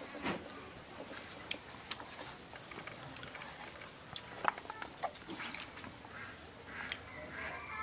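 Faint clicks and scrapes of fingers and food against steel plates as people eat rice by hand, with a few short animal calls in the background about halfway through and near the end.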